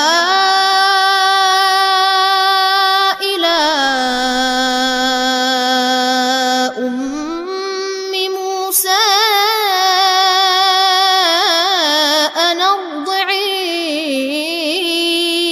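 A boy's voice reciting the Quran in melodic tajweed chant, Warsh reading, drawing the words out in long held notes. The first notes are held steady, stepping down a little after about three seconds and back up near eight; the later notes waver with fine ornaments before a final long held note.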